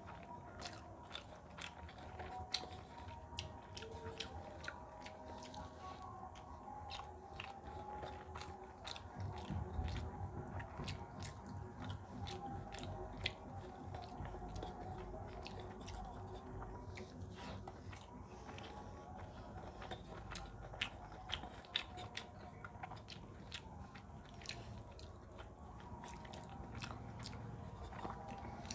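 Close-miked sounds of a person eating rice and potato curry by hand: chewing and mouth smacks with many sharp, irregular clicks, along with fingers mixing rice on a metal plate.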